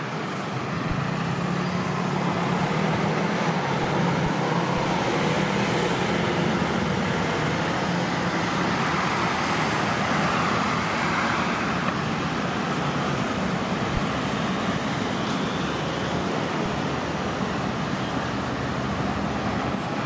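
Steady road traffic noise from cars and buses passing on a multi-lane road: a continuous wash of tyre and engine sound with a low engine drone, louder through the first half and easing slightly later on.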